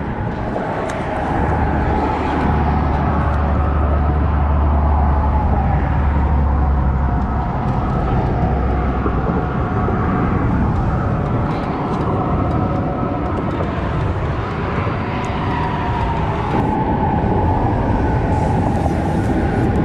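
Steady low outdoor rumble that is heaviest for several seconds near the start, with a few faint clicks.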